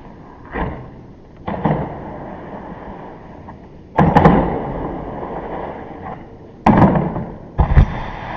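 Snowboard hits and slides: five sudden impacts, the loudest about four and about seven seconds in, each followed by a scraping slide that fades over a second or two.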